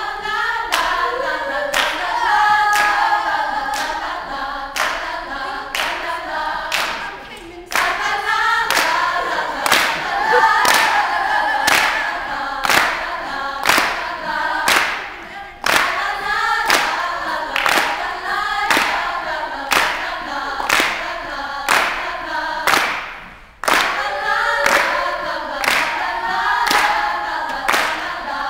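All-female a cappella group singing in close harmony, with steady hand claps a little more than once a second keeping the beat. The singing breaks off briefly twice.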